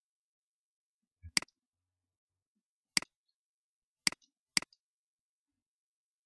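Computer mouse button clicked four times at uneven intervals, each a sharp click with its quick release tick; the last two come about half a second apart.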